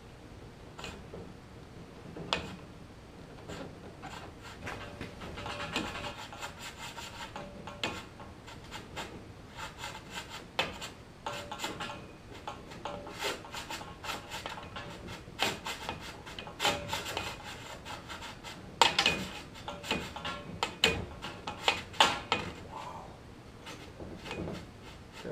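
Aluminium doubler tube on a mandrel being slid back and forth inside an aluminium leading-edge tube: irregular metal rubbing and scraping with scattered sharp clicks and knocks, busiest near the end. This spreads the Loctite fed in through the drilled holes.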